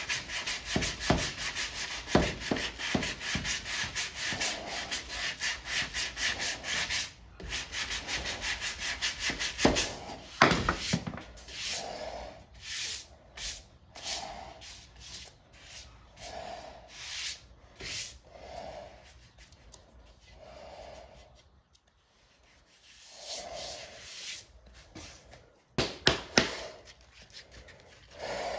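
Hand sanding of body filler on a truck cab with a sanding block: rapid back-and-forth rasping strokes. The strokes come thick and fast at first, then grow sparser, stop briefly about two-thirds of the way through, and start again near the end.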